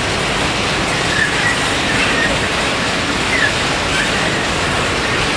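Freight train coal hopper wagons rolling past on the rails: a steady rolling noise of wheels on track, with a few brief, faint wheel squeals.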